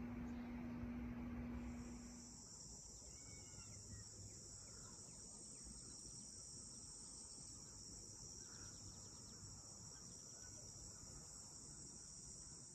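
A low steady hum with background noise stops about two seconds in. A steady high-pitched insect chorus takes over, with a few faint bird chirps.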